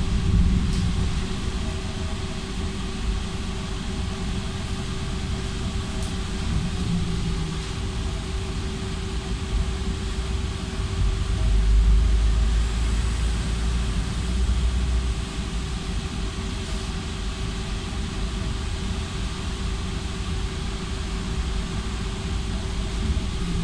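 Interior noise of a Belkommunmash BKM 60102MN tram: a steady electrical hum over a low rumble, the rumble swelling for a few seconds about halfway through.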